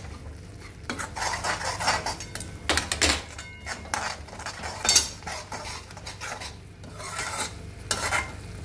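Steel slotted spatula stirring and scraping a thick, sticky green-gram and sugar filling around a metal kadai as it cooks down and thickens, with irregular metal-on-metal scrapes and clanks, the sharpest about five seconds in.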